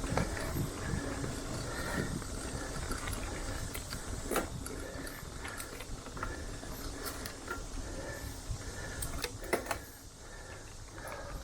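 Mountain bike riding over rough dirt trail: its drivetrain and frame rattling, with low rumble on the microphone and a few sharp knocks from bumps, one about four seconds in and two close together near the end.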